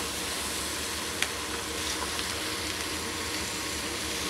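Pumpkin pieces sizzling steadily in oil in a steel pot, being cooked dry without water while they are stirred with a wooden spatula. One sharp tap comes about a second in.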